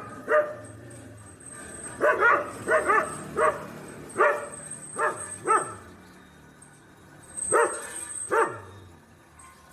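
A dog barking in short, high yelping barks, each one rising and falling in pitch, in quick runs. There is a pause a little past the middle, then two more barks near the end.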